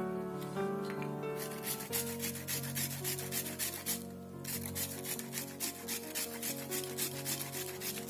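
Bilimbi fruit being rubbed over a hand grater: quick repeated rasping strokes with a short break about four seconds in, over background music.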